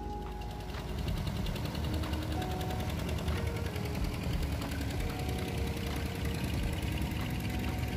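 A boat engine running with a rapid, even knocking beat, growing louder about a second in. Faint background music lies underneath.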